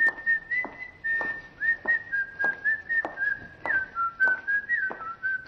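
A person whistling a melody through pursed lips: a single clear high tone that holds notes and slides down and up between them, over a steady beat of short, sharp clicks.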